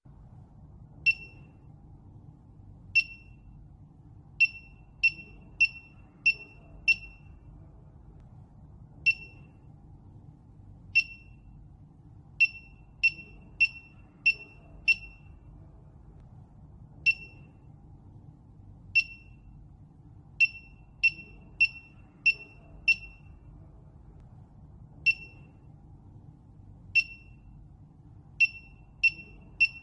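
Short, high electronic beeps from a SENKO SP2nd portable oxygen gas detector's buzzer. They come in a repeating pattern: two single beeps about two seconds apart, then a run of five quick beeps, the whole pattern repeating about every eight seconds. A faint steady low background hum lies underneath.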